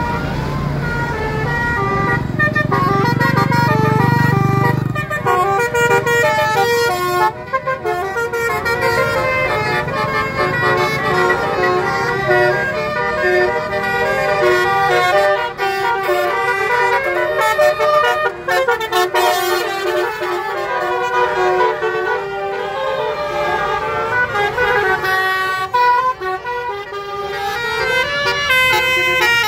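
Bus 'telolet' musical air horns playing a tune of quick stepping notes, several tones at once, throughout. A low engine rumble sits under the horns in the first five seconds or so.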